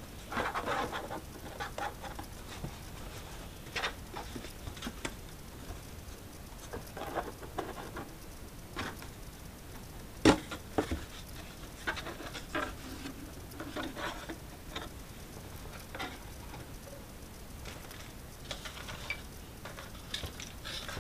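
Cardboard packaging being handled: scattered rustles, scrapes and taps as a box flap is opened and a cardboard insert is pulled out, with one sharper knock about ten seconds in.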